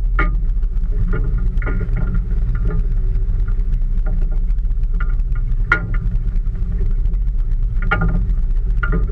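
Steady low rumble of a small fishing boat rocking on the open sea, with irregular sharp clicks and rattles every second or so.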